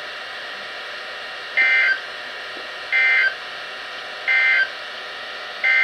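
NOAA Weather Radio SAME digital data bursts: three short, buzzy two-tone chirps a little over a second apart, the end-of-message code that closes the severe thunderstorm warning. A longer burst starts near the end, the header of the next alert. Faint radio hiss lies between the bursts.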